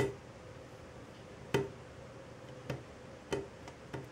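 Light, sharp taps on a ceramic bathroom sink, about six at uneven spacing, the first the loudest.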